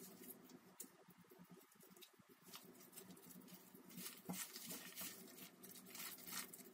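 Faint, irregular soft squishing and patting of a gloved hand kneading a wet mix of torn yufka pastry, egg, milk and crumbled white cheese in a glass bowl.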